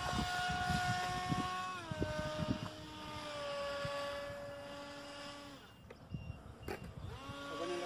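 Whine of an RC plane's EMax RS2205 brushless motor and 9-inch propeller passing overhead: a steady tone that drops in pitch about two seconds in, fades out about two-thirds of the way through, and comes back near the end. Wind gusts rumble on the microphone throughout.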